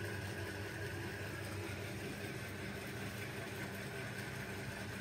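Steady low background hum with a faint, steady high whine above it, unchanging throughout.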